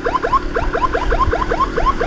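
Electronic emergency siren in a rapid yelp mode: a fast, even string of short rising chirps, about six a second.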